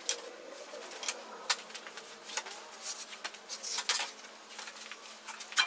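Scriber scratching a layout line onto a steel sheet, with scattered light clicks and taps of a metal square against the sheet; a sharper click near the end.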